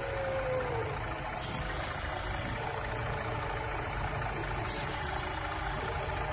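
Electroacoustic soundtrack: a steady low rumbling drone with a faint hiss above it, and a short falling tone in the first second.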